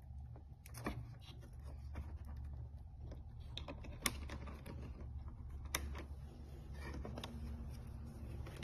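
Scattered small plastic clicks and taps of wire connectors being pushed into a treadmill's circuit board and the wiring being handled, the sharpest click about four seconds in, over a steady low hum.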